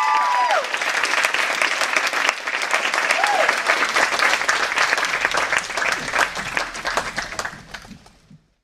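Audience clapping and applauding, with a couple of whoops in the first second and another brief one about three seconds in. The applause fades near the end, then cuts off abruptly.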